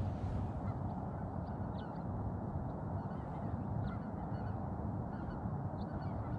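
Steady wind rumble on the microphone, with faint short bird calls scattered through it.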